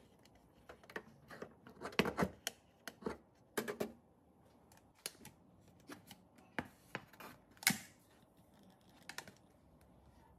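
Metal bread-machine loaf pan being handled: its wire handle clicking and the pan knocking and scraping as it is lifted out of the machine, set on a wooden cutting board and turned over to release the loaf. The clicks and knocks come irregularly, loudest about two seconds in and near eight seconds.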